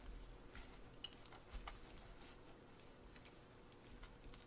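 Faint, scattered soft clicks and squishes of a metal utensil pulling tender meat off a cooked whole chicken.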